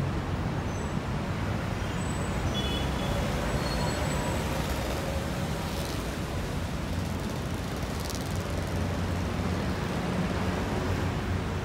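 Steady city road-traffic rumble, with a few short faint high-pitched chirps about two to four seconds in.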